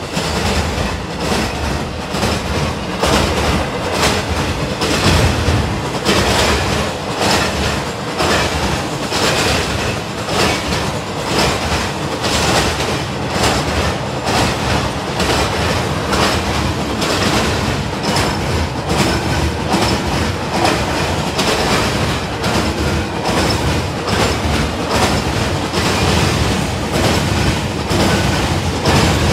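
Cars of a CSX intermodal freight train rolling past at speed, a steady rumble of steel wheels on rail with a continual clickety-clack of wheels passing over rail joints.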